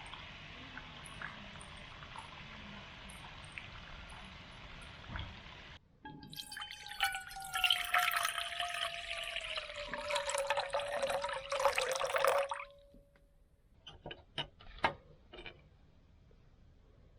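Water poured into a vessel for about seven seconds, its ringing tone slowly falling, followed by a few light clinks. Before it, a steady background hiss.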